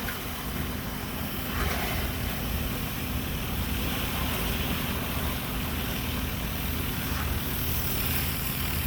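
Pressure washer engine running steadily under the hiss of a wand spraying a low-pressure soap application.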